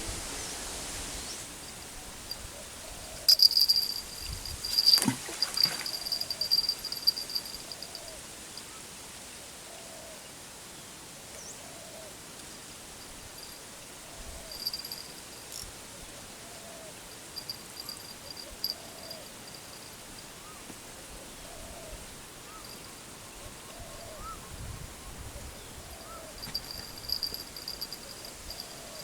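Outdoor insect chorus: crickets or similar insects chirring in high-pitched trills that come and go, with a soft low call repeating about once a second. A few sharp knocks come between about three and five seconds in.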